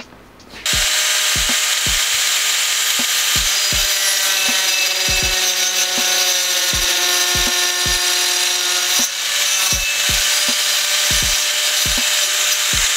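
Angle grinder with a 115 mm tungsten-carbide-grit wood-cutting disc, running at speed and cutting through a pine board with a loud, steady whine. It comes in abruptly near the start and dips briefly about nine seconds in.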